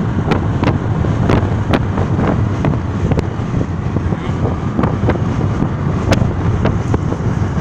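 Steady low rumble and wind noise of a moving vehicle heard from inside the cabin, with frequent irregular sharp clicks.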